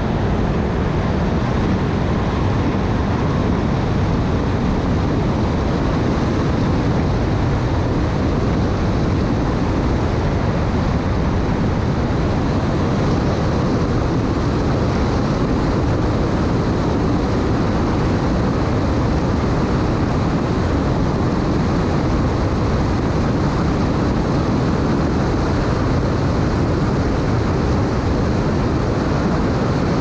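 Fountain 47 powerboat running at speed on its triple Mercury 1350 engines: a steady, even drone mixed with wind and water rushing past the hull.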